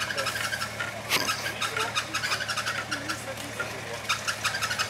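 Toyota Land Cruiser 70-series engine running steadily at low revs as the truck crawls over the forest floor, with frequent sharp crackles and snaps from twigs and dead leaves under the tyres.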